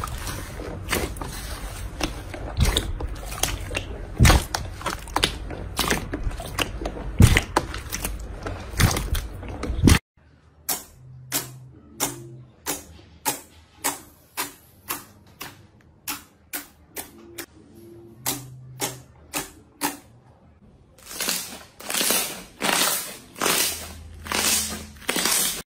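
Hands squeezing and poking slime: a dense run of wet crackles and pops, then, after a cut about ten seconds in, separate sticky pops about two a second as fingers poke a glossy slime, louder near the end.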